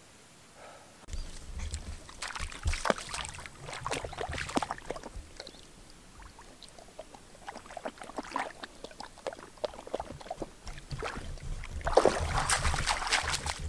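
A Belgian Malinois wading in shallow lake water, its legs splashing and sloshing irregularly, with a louder run of splashes near the end as it walks out toward the shore.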